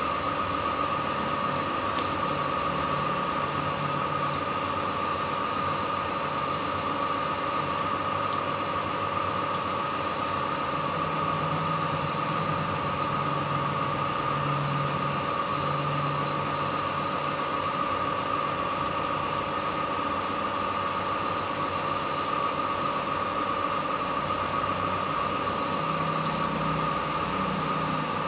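Steady mechanical hum with a constant high whine, unchanging throughout.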